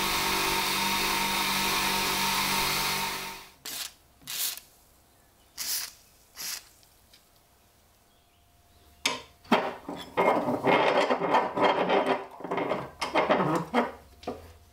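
Bench motor running steadily with the ax's metal handle held against its polishing wheel, shutting off about three and a half seconds in. A few short knocks follow, then from about nine seconds a run of quick rubbing strokes on the ax head's metal.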